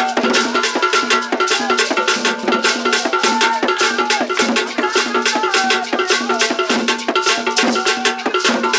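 Live traditional Akan drumming: rapid, steady drum strokes with sharp clapping-like hits, and voices singing along.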